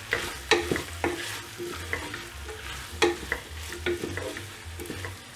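Wooden spoon stirring cubed potatoes, onions and tomatoes frying in a metal pressure cooker pot, with irregular knocks and scrapes against the pot, some with a short metallic ring, over a light sizzle.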